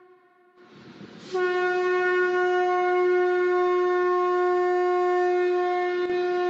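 Conch shell trumpet being blown: after a brief lull, a breathy onset about a second in, then one long steady blast on a single low note that holds without a break.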